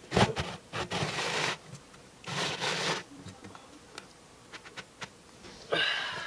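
Screw-on plastic lid of a buried barrel being twisted shut by hand: rasping, rubbing strokes of plastic on plastic in three bursts, a long one at the start, a shorter one a little after two seconds and another near the end, with small clicks between.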